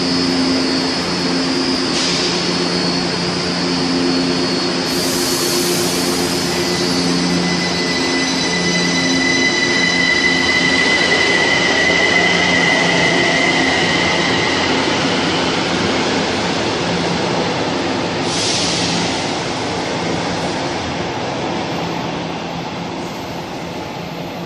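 São Paulo Metro J-fleet train pulling out of an underground station, with a steady pulsing motor hum and a high whine for several seconds in the middle. Two short bursts of hiss come about five and eighteen seconds in, and the sound fades slightly as the train clears the platform.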